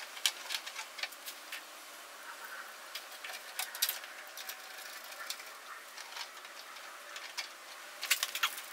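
Scattered light clicks, taps and rustles of hands working oil-cooler hoses and their fittings, with a quick cluster of clicks near the end.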